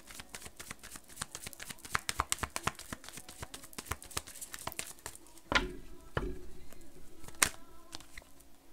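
Tarot cards being shuffled by hand: a fast run of crisp papery card clicks, then three louder knocks in the second half as the deck is handled on the table.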